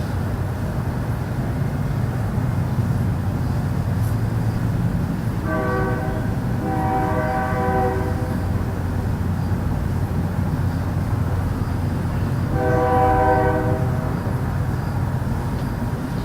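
Distant trumpet-like horn tones, a chord of several notes, blaring in two drawn-out blasts about six and thirteen seconds in, over a steady low rumble. This is the unexplained 'strange sound' reported from Stockton, and it is much like a far-off train horn.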